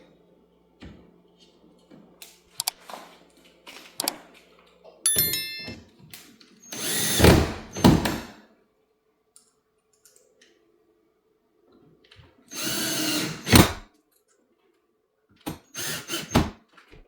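Power drill run in several short bursts, each about a second long or less, with pauses between them.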